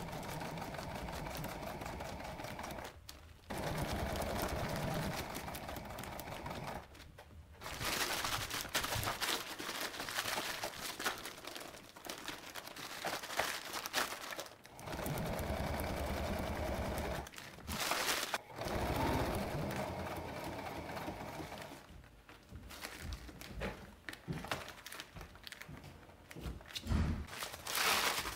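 Brother home sewing machine stitching through crinkly Cuben fiber fabric in several runs of a few seconds each, with short stops between them. Over the last few seconds, irregular crinkling of the stiff fabric as it is handled.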